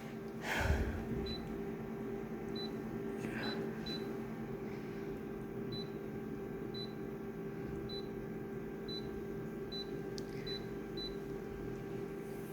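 Printer running with a steady hum, a thump about half a second in, then a string of very short high beeps at uneven intervals.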